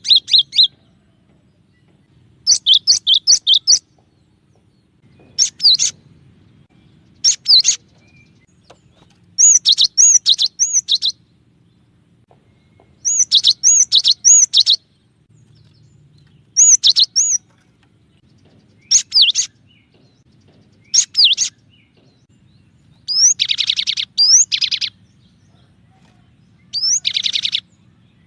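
Cinereous tit (gelatik batu) singing: short bursts of three to five sharp, high repeated notes, a phrase every two seconds or so. Near the end the phrases become fast trills.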